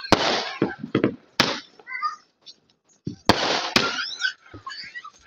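Aerial fireworks bursting overhead: four sharp bangs, two in the first second and a half and two close together a little past the middle, each with a short trailing rush of noise.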